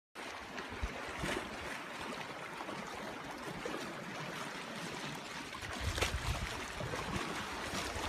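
Sea water washing and lapping against a rocky shore, a steady hiss of small waves, with a short low rumble about six seconds in.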